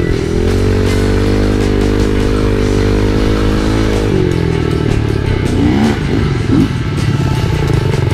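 Kawasaki KLX110 dirt bike's small single-cylinder four-stroke engine running at steady high revs. About four seconds in it drops lower as the throttle eases off, then gives a couple of short rises and falls in pitch. Background music plays underneath.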